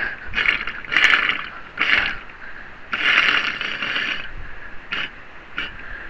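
Hydraulic outrigger cylinder being worked by hand: several short metallic scraping bursts as the oiled piston and rod are pushed into the cylinder barrel, the longest about three seconds in, followed by a few light metal clicks near the end.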